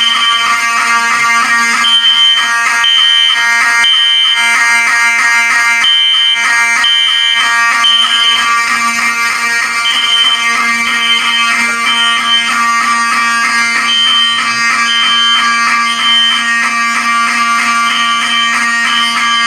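Several fire alarm devices sounding together in alarm: a dense, steady, buzzing horn chord, over which a high beep repeats in sets of three about a second apart, the temporal-3 evacuation pattern.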